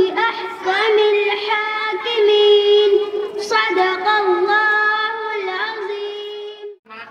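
A young girl singing solo, a slow melodic line of long held notes with a wavering pitch; she stops just before the end.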